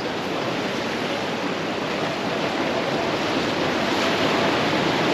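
Ocean surf breaking and washing around the pier pilings below, a steady rush of water that swells a little near the end.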